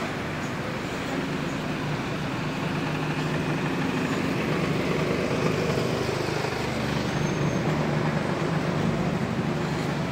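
Slow car traffic passing close by on a narrow street: a steady hum of engines running at low speed. It grows a little louder after the first couple of seconds.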